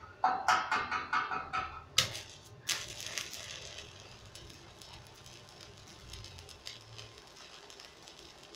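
Stick (arc) welding on thin steel tubing at low amperage, about 77 amps. The arc is struck in a stuttering series of sharp spits and clicks in the first two seconds or so. It then settles into a steady crackling sizzle as the weld bead is run.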